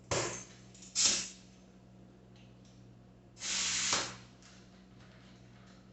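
Air hissing into a bicycle inner tube as it is inflated in short bursts: two brief bursts near the start and about a second in, then a longer one about three and a half seconds in, giving the tube just enough air to take shape.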